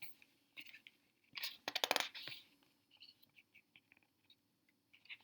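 Faint handling of a picture book: scattered light clicks and a short burst of paper crackling about a second and a half in, as a page is turned.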